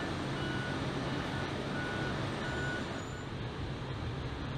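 A vehicle's reversing alarm sounds a series of short, evenly spaced beeps that fade out about three seconds in, over the steady low hum of a heavy vehicle engine running.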